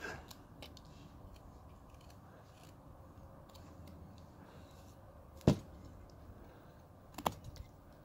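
Carving knife paring small chips from a basswood rough-out: faint cutting snicks, with one sharp knock about five and a half seconds in and a smaller one near the end.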